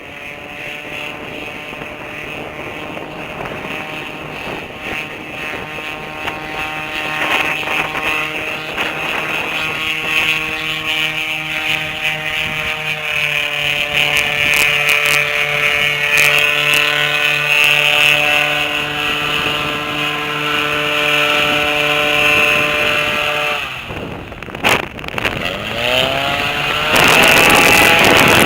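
Airboat engine and propeller running steadily, growing louder. About 24 seconds in the engine note drops away briefly, then climbs back up as it revs. Near the end a loud rush of noise covers it.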